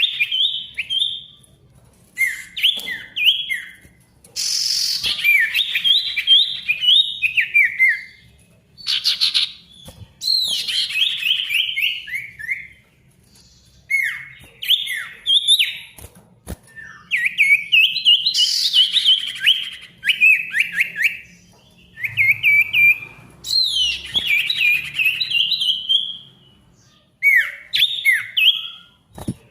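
Male sirtu songbird singing loudly and busily: repeated phrases of quick, sweeping whistled chirps, each phrase a second or two long, with short pauses between them.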